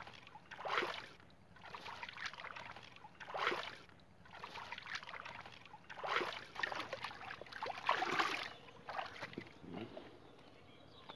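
Shallow muddy water sloshing and splashing as a person wades and gropes with his hands at the bottom, in irregular splashes every second or two.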